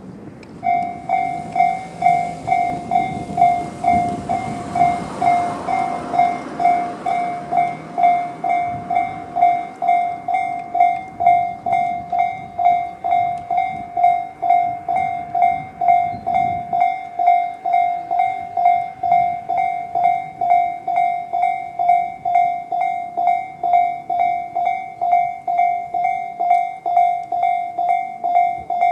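Japanese railway level-crossing electronic warning bell (Tobu "sound C" type) starts a little under a second in and rings steadily at about two strikes a second. A broad rushing noise swells and fades under it over the first several seconds.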